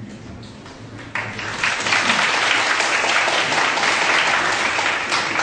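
Audience applause, starting about a second in and holding steady.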